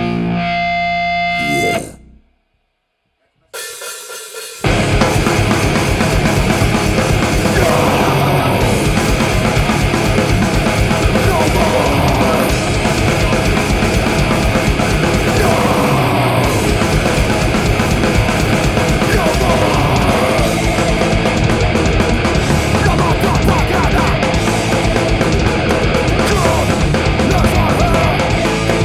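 Heavy rock band playing live on distorted electric guitar, bass guitar and drum kit. A held chord rings and cuts off about two seconds in. After a brief silence and a quieter passage, the full band comes back in loud and dense.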